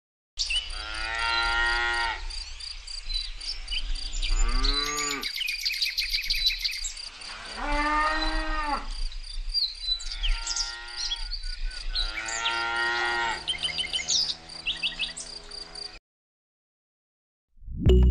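Cattle mooing, about five long calls one after another, over a steady, evenly pulsing chirping of crickets. The recording cuts in abruptly about half a second in and stops dead near the end.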